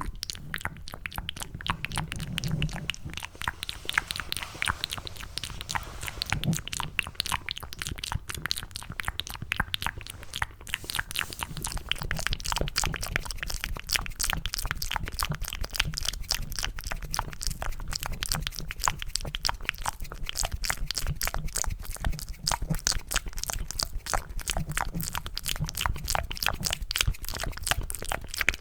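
ASMR mouth sounds made with cupped hands: a dense, continuous stream of wet, sticky clicks and smacks meant to mimic the sound of mac and cheese.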